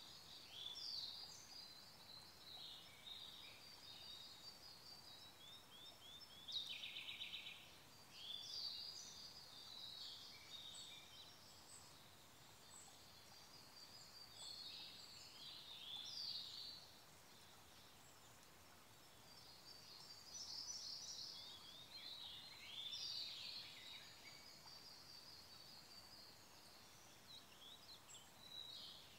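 Forest songbirds singing repeatedly in high, rapid twittering and trilling phrases, with a louder rattling trill about seven seconds in, over a faint steady brook.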